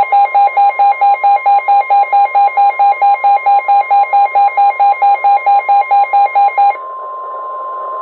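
Midland weather alert radio sounding its alert: a loud pulsing beep, about four a second, over the steady tone of the NWS warning alarm. Near the end the beeping stops and the steady warning tone carries on alone. It announces an incoming Special Marine Warning for Lake Michigan.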